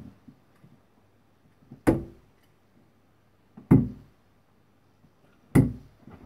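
Three steel-tip darts striking a Winmau bristle dartboard one after another, each a sharp thud, spaced a little under two seconds apart.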